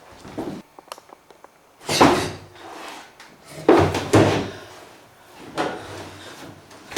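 A door banging shut twice, about two seconds apart, after a few light clicks.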